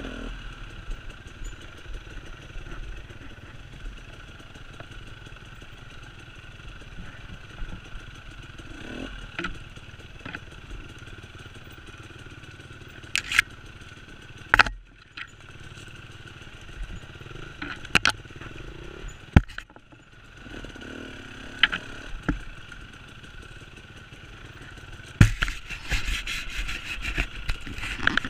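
Enduro dirt bike's engine running at a steady pace as the bike rides over a rough, rutted trail, with sharp knocks and clatter from the bike jolting over roots and ruts. A string of single knocks comes in the middle, and the clattering and scraping get denser and louder near the end.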